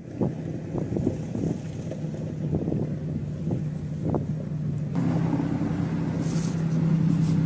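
A vehicle engine running steadily, with a few short knocks in the first few seconds. About five seconds in it steps up louder, with a second, higher hum joining in.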